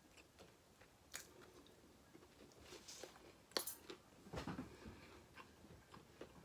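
A person chewing food close to the microphone: faint, scattered mouth smacks and small crunches, a little louder a bit past the middle.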